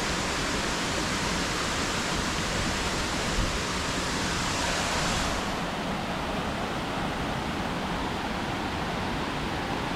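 Steady rushing of a waterfall cascading downhill over rocks; about five seconds in, its highest hiss fades a little.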